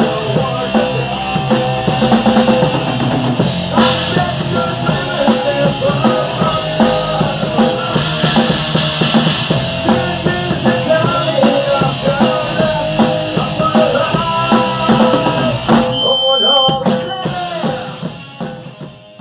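Rock band playing, with drum kit, electric guitars and bass guitar; the sound thins out about three-quarters of the way through and fades out near the end.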